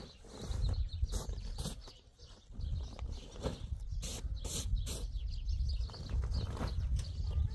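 Plastic tarpaulin rustling as it is rolled up, with sharp crackles about a second in and a cluster of them around four to five seconds, over a low rumble. Birds chirp faintly at the start.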